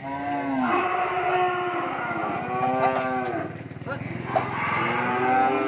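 A cow mooing loudly in three long, drawn-out calls while it is pushed up onto a truck bed against its will. There is one sharp knock about four and a half seconds in.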